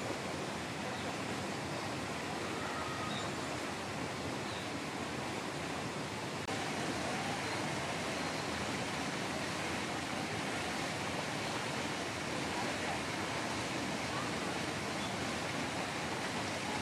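Steady hissing background noise, a little louder from about six seconds in, with faint distant voices now and then.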